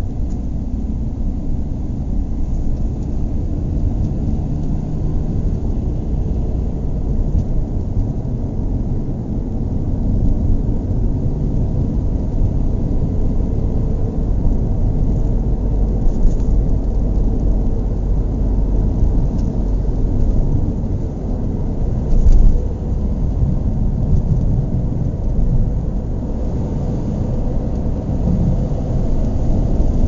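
Car engine idling: a steady low rumble, with one brief louder thump about two-thirds of the way through.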